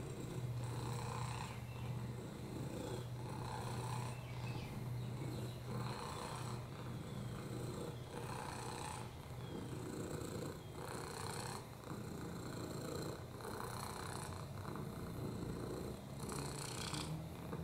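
Domestic cat purring steadily while being stroked, the purr swelling and easing with each breath about every two seconds.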